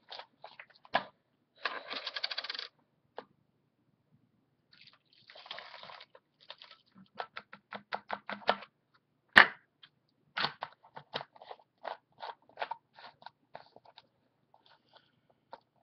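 Bottles and containers being handled while a cleaner is mixed: a run of sharp plastic clicks and clinks, the loudest about nine seconds in, with two hissing bursts of about a second each near the start.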